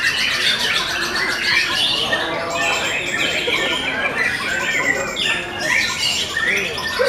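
Many white-rumped shamas (murai batu) singing at once: a dense, loud mix of overlapping rising and falling whistles and fast trills.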